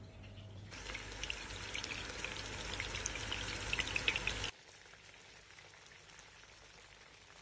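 Small minced-meat balls sizzling and crackling as they fry in shallow oil in a non-stick pan, with a dense hiss full of sharp spitting pops. The sizzle cuts off suddenly about four and a half seconds in, leaving only a faint hiss.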